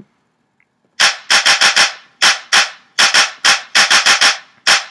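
A hip-hop backing beat played loud starts about a second in: a quick, rhythmic pattern of sharp drum hits, several a second.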